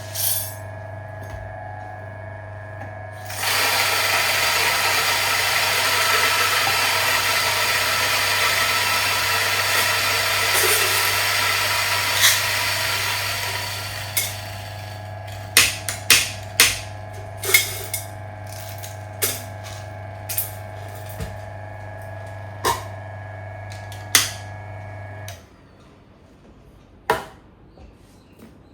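Mazzer Philos flat-burr espresso grinder motor running with a steady hum. About three seconds in, a loud stretch of grinding begins as the beans pass through the burrs; it fades by about 14 s into sparse sharp clicks as the last bean fragments are ground out. The motor shuts off about 25 seconds in, and a single knock follows.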